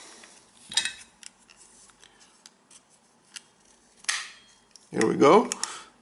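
Small plastic and metal clicks from a shopping cart coin lock's mechanism as the metal tongue of a cart key is pushed into it, with a sharper click about four seconds in as the spring-loaded latch moves.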